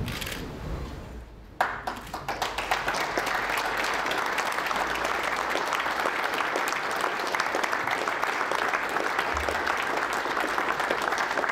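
Audience applauding, the clapping breaking out suddenly about one and a half seconds in and then continuing steadily.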